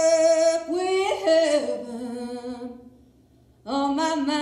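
Unaccompanied folk-style singing: long held notes that slide from pitch to pitch, a short near-silent break about three seconds in, then a new held note.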